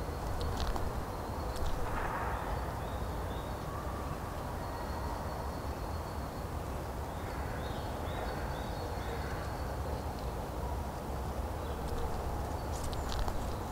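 Outdoor ambience of a quiet cemetery: a steady low rumble with a few faint crow caws, one about two seconds in and more around the middle. A high, repeated chirping starts about five seconds in and carries on.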